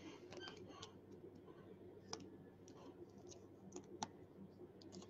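Faint crinkling and clicking of a plastic trading-card pack wrapper and cards being handled, with a few sharp ticks, the loudest about two and four seconds in.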